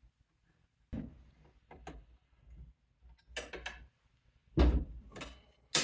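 Clicks and metal clunks from working the blade arbor bolt of a DeWalt DCS361B cordless miter saw, with the spindle lock held. They come in short clusters, and the two loudest clunks fall near the end.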